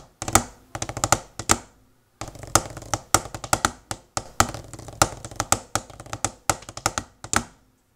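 Pipe band drum score played with round-tipped drumsticks on a practice surface: fast, dense taps and rolls with accented strokes, a brief break about two seconds in, stopping shortly before the end.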